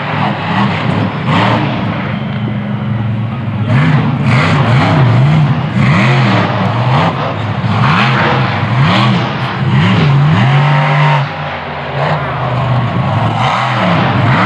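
Bigfoot monster truck's engine running hard, its revs swinging up and down again and again as the truck jumps and drives over the dirt course.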